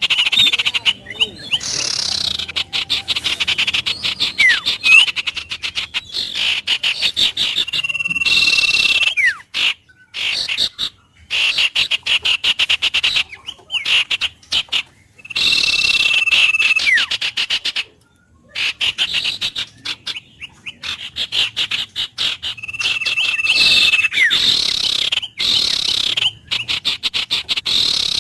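A chorus of frogs calling in rapid pulsing trills, with birds whistling over it: some held high notes, some sliding down.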